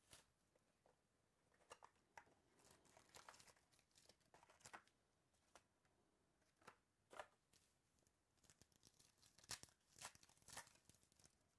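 Faint, scattered crackles of trading-card packaging being handled: plastic wrap crinkling and a foil card pack torn open, the tearing strongest near the end.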